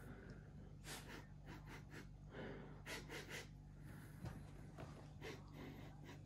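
Faint, short nasal sniffs in quick runs: a person sniffing closely at food, trying to pick out its smell.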